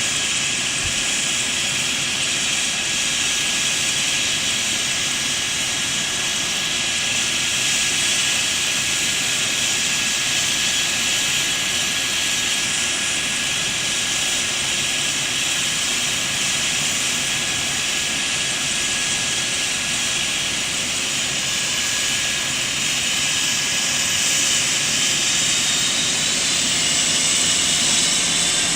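Helicopter running steadily: a loud, even rush with a high whine held on one pitch. Near the end a few fainter tones rise in pitch.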